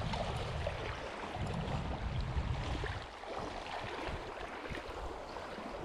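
Wind buffeting the microphone over small waves lapping in shallow sea water; the low rumble eases about three seconds in.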